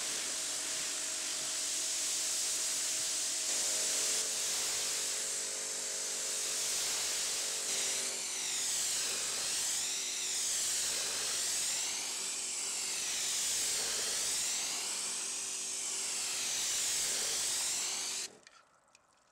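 Low-pressure water spray hissing onto a car's painted bodywork as it is rinsed, with a steady hum beneath it for the first several seconds. In the second half the hiss rises and falls in a wavering whoosh as the spray sweeps along the panel. It stops suddenly near the end.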